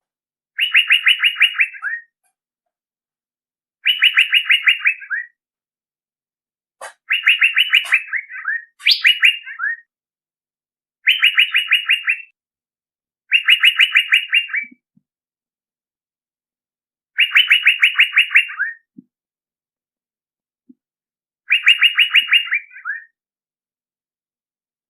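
Male Asian fairy-bluebird (cucak biru) song played as a lure call: eight short phrases of fast, stuttering chirps, each about a second long, repeated every two to four seconds, with dead silence between them.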